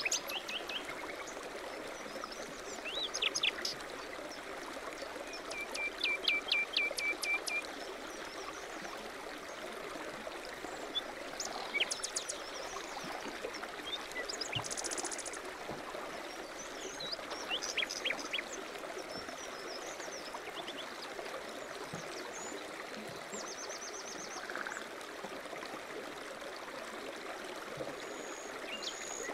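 Songbirds chirping and trilling in short phrases over the steady rush of a stream.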